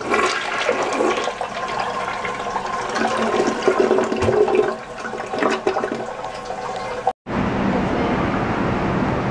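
Toilet flushing, the water rushing and swirling down the bowl. It cuts off abruptly about seven seconds in, giving way to steady background noise.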